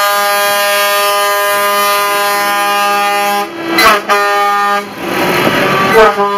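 Truck air horn sounding in long, steady blasts as a lorry passes close by. One blast is held for about three and a half seconds, then comes a short break and a brief second blast. Engine and road noise fill a gap a little later, and the horn sounds again near the end.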